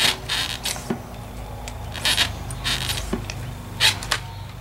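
A handful of short scraping, clicking noises from a Thomson dropper seatpost and its handlebar remote lever being worked by hand, the saddle pushed and held as the lever is pressed and released to test the cable adjustment.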